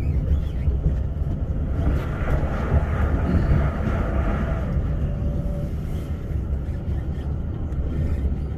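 Steady low rumble of an Elizabeth line Class 345 train running at speed, heard from inside the carriage. From about two to five seconds in, a whooshing swell rises and fades as a train passes on the next track.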